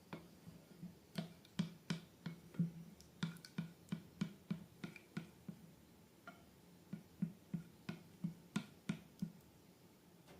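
Slime being pressed and worked by hand, giving an irregular run of short soft clicks and pops, about two to three a second, with a short lull partway through.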